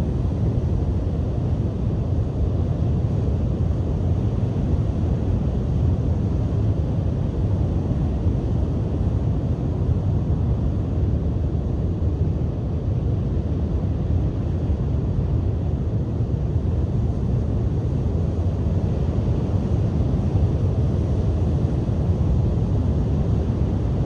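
Strong wind buffeting the microphone in a steady low rumble, over the continuous wash of surf breaking on a beach.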